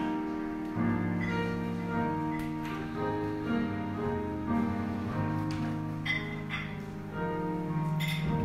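Slow instrumental music of sustained chords, the harmony changing every second or two.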